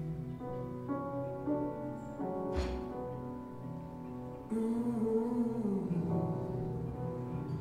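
Live improvised music: sustained pitched tones moving from note to note, with one sharp knock about two and a half seconds in and a fuller layer of sound entering halfway through.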